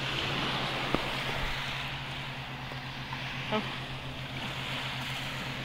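Small waves washing steadily onto a shingle beach, a continuous even hiss, with a faint brief voice about three and a half seconds in.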